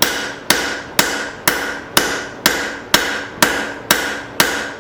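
Steady hammer blows on hot leaf-spring steel, about two a second, each strike ringing, as the steel is drawn out longer and thinner.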